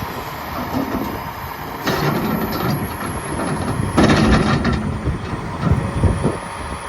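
Caterpillar 336E L track excavator working: a steady mechanical rumble broken by heavy metallic clanks and knocks, the loudest about four seconds in.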